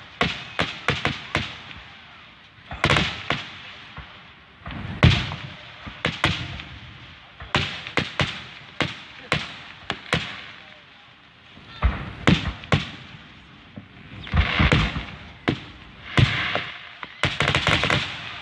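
Aerial fireworks shells bursting: irregular booms and sharp cracks, some single and some in rapid volleys, ringing out after each burst.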